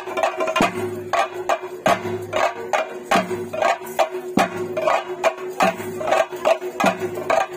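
Theyyam ritual drumming: chenda drums beaten in a fast, dense rhythm of sharp strokes, over a steady held tone.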